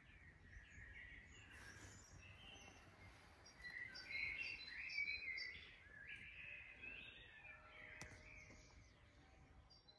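Faint outdoor background with birds chirping in short calls, loudest about four to six seconds in.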